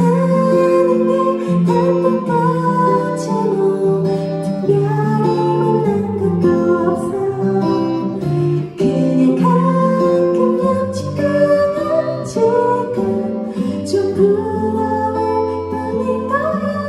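Live concert performance of a pop song: a woman singing over a band, with guitar clearly heard.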